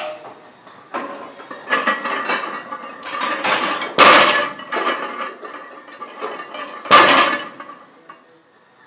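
A barbell loaded with about 470 lb of iron plates being deadlifted and set down on a rubber floor. The plates clank and rattle, with two loud metal crashes about three seconds apart as the bar lands.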